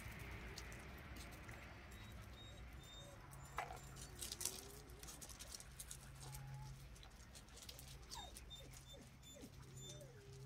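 Yorkshire terrier puppies at play: faint short squeaks and whimpers, a few from about three and a half seconds in, with light patter and clicks of small paws on gravel.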